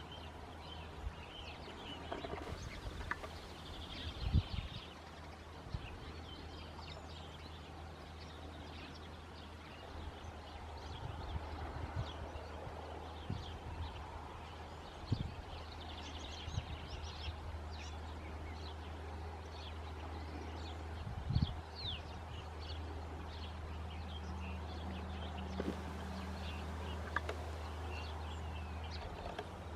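Small birds chirping on and off over a steady low hum, with a few dull knocks, the loudest about four and twenty-one seconds in.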